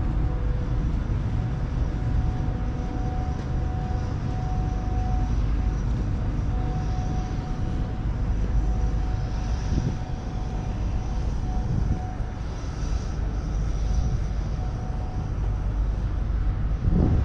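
Outdoor city ambience: a steady low rumble with no distinct events, and a faint thin tone that comes and goes.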